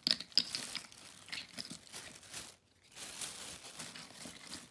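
A plastic bag crinkling as a hand rummages through it, with a couple of sharp clicks of plastic bottle caps in the first half-second.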